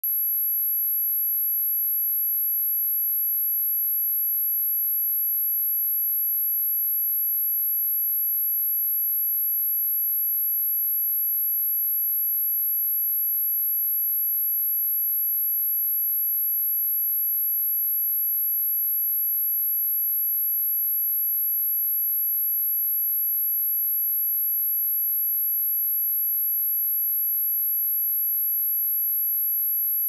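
Electronically generated pure sine-wave test tone at 11648 Hz: one steady, very high-pitched tone held at constant loudness, used to test or clean a speaker.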